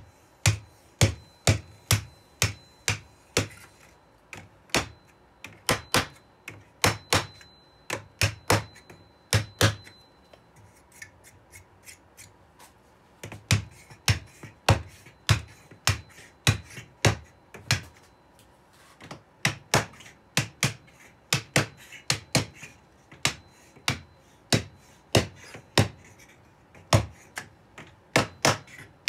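A small hammer tapping a wooden block, seating walnut kumiko strips down into the lattice. The sharp knocks come in runs of about one or two a second, with a few lighter taps about halfway through.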